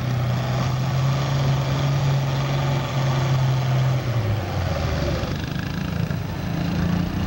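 Farm tractor engine held at a steady high speed at the end of a pull with the sled. About four seconds in it throttles back and drops to a lower, rougher note.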